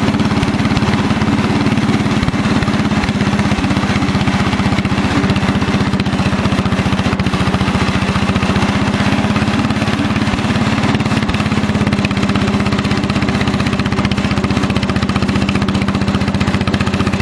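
Cub Cadet 100 garden tractor's single-cylinder Kohler engine running at a steady speed as the tractor drives, with a firm, even note that neither revs up nor drops.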